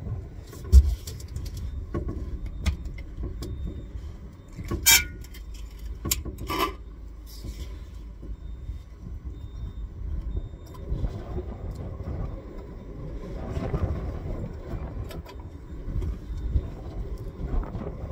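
Clicks, knocks and metallic clinks as a street-light lantern's canopy is unclipped and opened and the metal halide lamp is unscrewed from its socket, with a loud knock about a second in and two ringing clinks around five and six and a half seconds in. A low, uneven rumble runs underneath.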